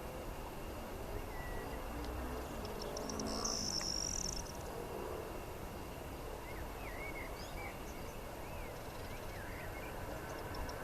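Birds singing: a high, buzzy trill a few seconds in, then a string of short whistled chirps, over a steady low background rumble.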